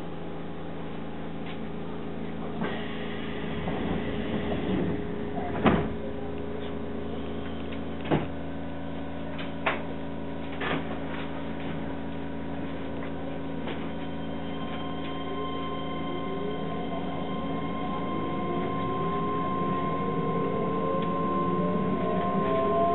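Keihan 13000 series electric train heard from inside the front car: a steady hum while it stands at the platform, broken by a few sharp knocks, then a climbing electric whine from the inverter and traction motors over the last several seconds as it pulls away.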